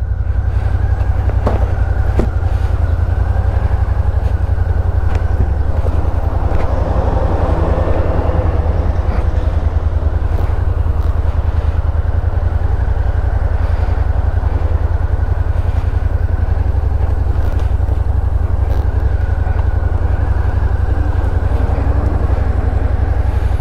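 Suzuki Gladius 650's V-twin engine running at low speed, a steady low throb.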